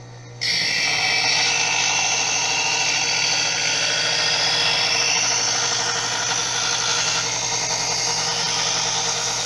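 Secura two-stage electric knife sharpener running, with a steel kitchen knife drawn through its sharpening slot. The blade grinds against the spinning abrasive wheels in a steady, continuous hiss over the motor's hum. The grinding starts about half a second in and stops as the blade comes out near the end.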